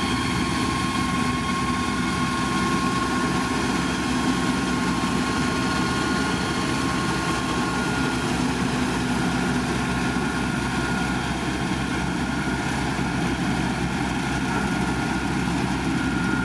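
Motor grader's diesel engine running steadily, a constant heavy rumble with a few steady whining tones on top.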